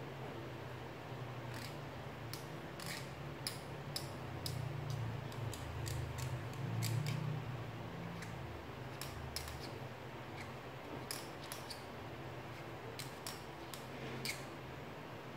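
Black marker pen drawing on paper: short scratchy strokes and dabs, heard as an irregular string of quick ticks, over a faint low hum that swells in the middle.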